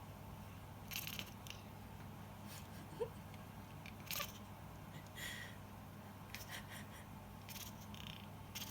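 Domestic cat giving a short, rising chirp about three seconds in, among a few soft rustles and clicks over a low steady hum.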